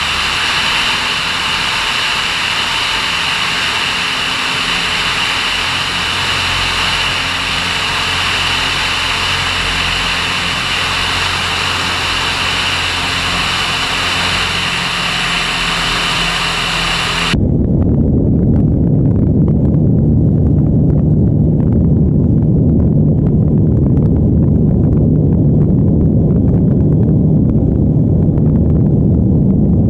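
Single-engine light aircraft in level flight: steady piston engine and propeller drone with wind rush. For the first half it is a bright, hissing mix of wind and engine heard outside the airframe. Just past halfway it cuts abruptly to a duller, lower engine drone heard inside the cockpit.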